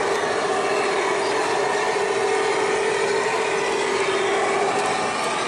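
A large-scale garden railroad model train passing close by, its streamlined passenger cars running on the track with a steady hum.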